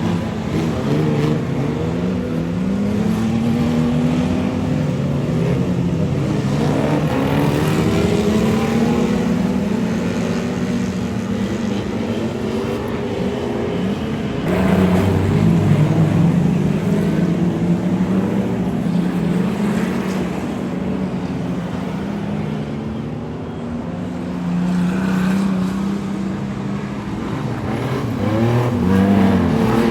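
Several speedway race car engines revving up and easing off as the cars run around the track. The engines grow louder about halfway through and again near the end.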